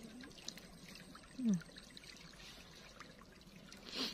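Water trickling and dripping off a square lift net as it is raised out of the river. A short, loud voice sound with falling pitch comes about a second and a half in, and a brief louder burst comes near the end.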